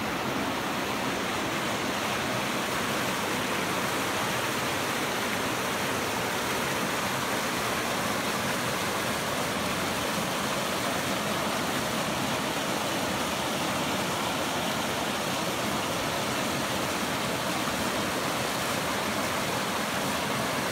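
Small waterfall pouring down a narrow chute in layered rock into a pool: a steady rush of falling water.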